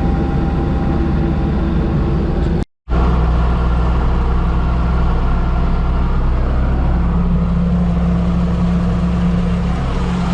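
John Deere 8820 combine's diesel engine running steadily as the combine is cleaned out and unloaded. The sound cuts out for a moment about two and a half seconds in.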